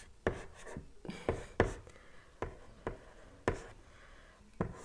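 Chalk on a blackboard being drawn in short strokes: about eight sharp taps with light scratching between them.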